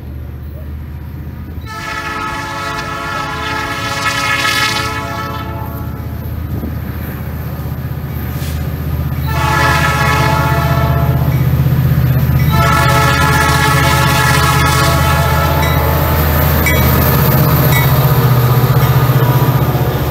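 Diesel freight locomotive's horn sounding three blasts for a grade crossing: a long one about two seconds in, a short one, then another long one. Under it the locomotive's engine rumbles, growing louder as it nears, and near the end the covered hopper cars roll past with wheel clatter.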